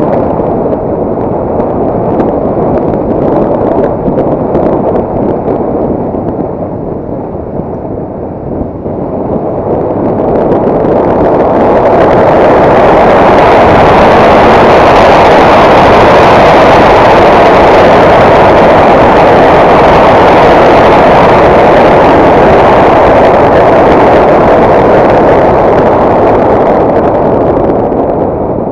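Motorcycle on the move heard from a camera mounted on the bike: engine running under a heavy rush of wind over the microphone. It grows louder about ten seconds in and eases off near the end.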